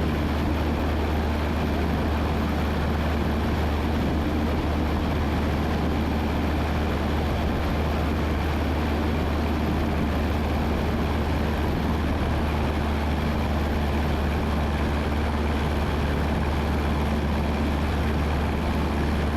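1977 Cessna 172N's four-cylinder Lycoming engine and propeller droning steadily in flight, heard from inside the cabin.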